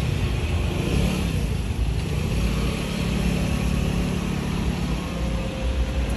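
Road traffic: a motor vehicle's engine running steadily over a low rumble of traffic noise.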